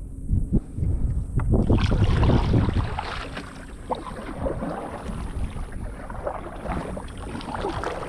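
Water splashing and sloshing at the side of a fishing kayak, busiest and loudest a couple of seconds in, with wind buffeting the microphone.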